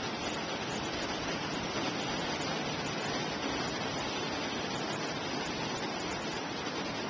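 Atlantic Ocean surf on the beach, heard as one steady, even rushing wash with no single wave standing out.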